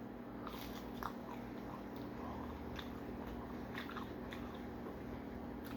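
Faint chewing of McDonald's fast food, with a few soft, irregular clicks over a steady low room hum.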